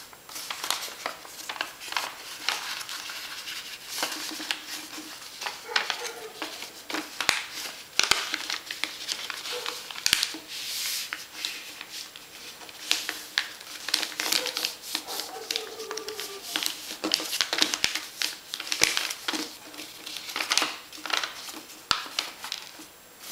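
Paper rustling and crackling in quick, irregular strokes as a sheet is folded by hand into a box and its creases are pressed flat.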